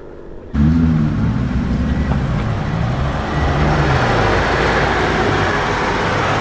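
A BMW M car's engine and exhaust at low revs, cutting in abruptly about half a second in, its note wavering up and down and growing louder and rougher in the second half.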